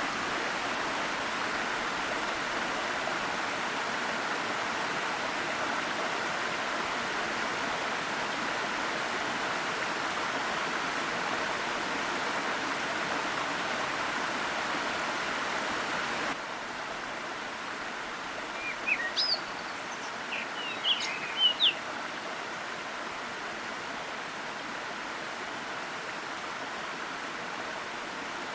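Waterfall rushing steadily, cutting suddenly to a slightly quieter water noise a little past halfway. A few short, high bird chirps come a few seconds after the cut.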